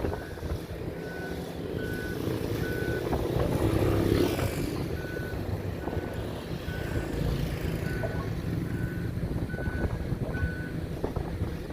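Construction machine's reversing alarm beeping at a steady pitch about once every three-quarters of a second, over the low, steady running of a heavy diesel engine. About four seconds in, the machine noise swells briefly, covering a few beeps.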